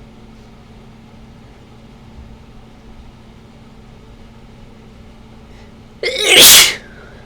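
A person's single loud sneeze, about six seconds in, brought on by sniffing ragweed. A low steady hum runs underneath.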